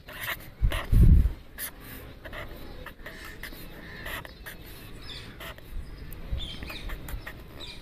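Pen scratching on paper in short strokes, drawing the lines and zigzag resistors of a circuit diagram, with a dull low thump about a second in.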